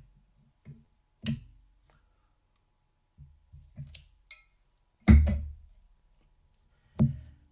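Workbench handling noises: lock-picking tools being set down and the padlock being freed from a vise, as a series of separate knocks and light clicks. The loudest is a heavy thump about five seconds in, followed by a sharp click near the end.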